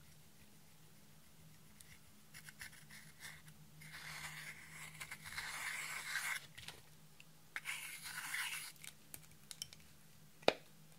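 A metal tool scraping and crushing pressed pink makeup powder in its compact pan, in two scratchy, crunchy stretches of many small clicks, then one sharp click near the end.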